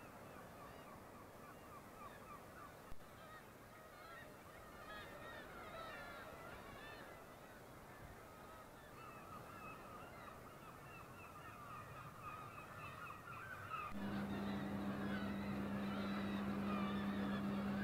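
A colony of gulls calling over one another: many short, overlapping cries. About fourteen seconds in, a steady mechanical hum starts suddenly and stays under the calls.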